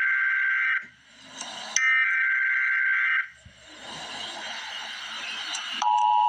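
Emergency Alert System SAME header: buzzing, warbling digital data tones. One burst ends about a second in, and a second burst follows from about two to three seconds. Hiss builds after that, and near the end the steady two-tone EAS attention signal starts.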